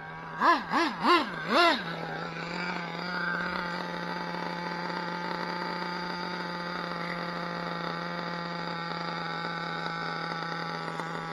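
A Kyosho Inferno ST nitro RC truck's Dynamite .26 engine revved in four quick blips in the first two seconds, each rising and falling in pitch, followed by a steady high-pitched hum with many overtones.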